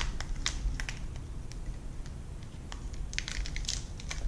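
Hands handling a plastic webcam and its cable, making small crackles and clicks: a few near the start and a short cluster about three seconds in.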